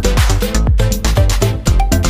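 Upbeat electronic background music with a steady beat of about two beats a second.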